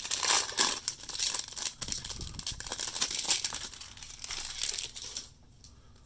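Plastic trading-card pack wrapper being torn open and crinkled by hand, a dense crackling that stops about five seconds in.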